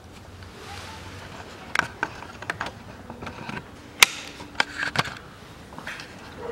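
Camera handling noise: a string of sharp clicks and knocks with some rustling as the camera is picked up and moved, the loudest knock about four seconds in.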